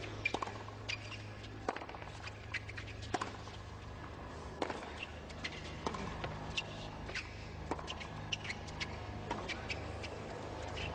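Tennis rally on a hard court: sharp pops of racquets striking the ball and the ball bouncing, coming irregularly every second or so, over a steady low hum.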